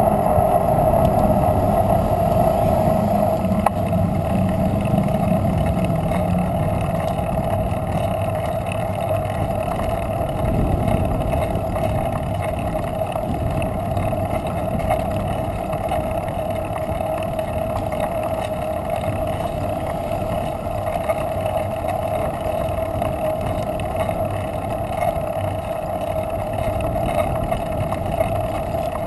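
A bicycle rolling along asphalt, heard through a camera microphone with wind rushing over it. There is a low rumble and a constant mid-pitched hum that holds steady throughout.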